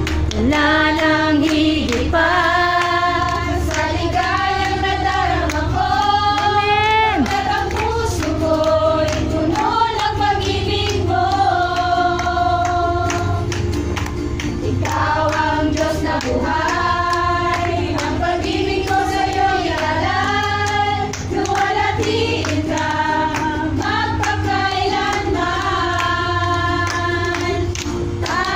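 A group of women singing a worship song together, with a small acoustic guitar and hand clapping along.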